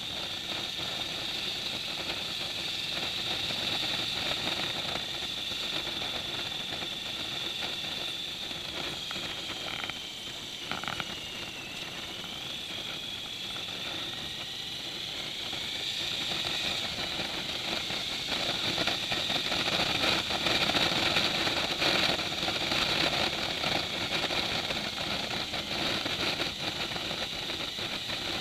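Motorcycle engine running at riding speed, with wind and road noise, heard from a dashcam mounted on the bike. Its pitch dips about ten to twelve seconds in as the bike slows, and the sound grows louder from about sixteen seconds as it speeds up again.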